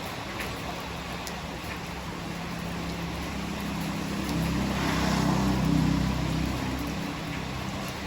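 Steady rain hiss with a motor vehicle passing. Its engine hum swells up, peaks about two thirds of the way through and fades away, with tyres hissing on the wet road as it goes by.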